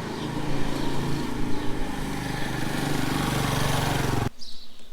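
A small engine running steadily with a rough, noisy drone, which stops abruptly a little over four seconds in.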